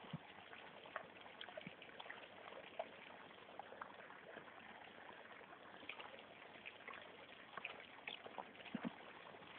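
Near silence: a faint steady hiss with many scattered light ticks.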